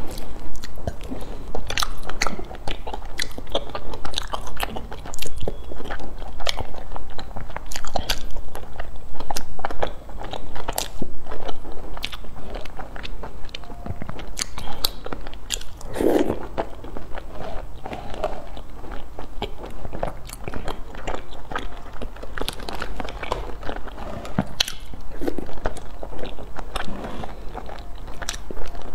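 A person biting and chewing small round food balls in a milky sauce, with many sharp crunches and clicks coming irregularly.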